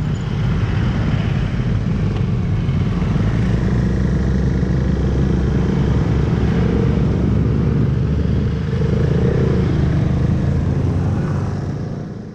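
KTM Duke 390's single-cylinder engine running at a steady cruise, with wind rushing over the camera microphone; the sound fades out near the end.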